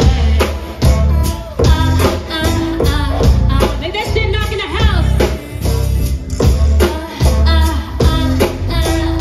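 A singer performing live with a band: a sung vocal line over heavy bass and a steady drum beat, with a sliding vocal run near the middle.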